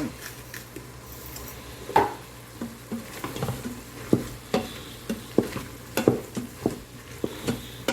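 Spoon stirring seasoned meat in an Instant Pot's inner pot: irregular knocks and scrapes against the pot, about one or two a second and the loudest about two seconds in, over a faint sizzle of the meat cooking.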